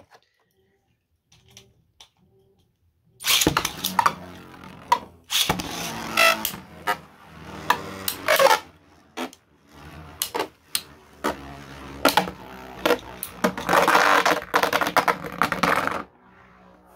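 Two 3D-printed Beyblade spinning tops whirring and scraping across a plastic Beyblade stadium floor, clacking together in many sharp collisions. The sound starts about three seconds in, after near silence, and cuts off suddenly about a second before the end.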